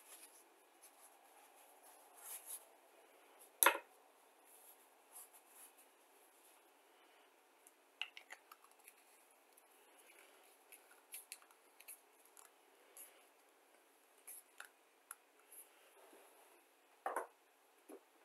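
Scattered faint clicks and taps of small tools and plastic model-kit parts being handled on a workbench, the sharpest click about four seconds in.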